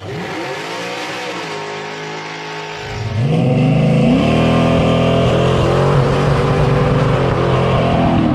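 Classic Dodge Charger's V8 revving. About three seconds in it gets louder as the revs climb and stay high, with the rear tyres spinning in a smoky burnout.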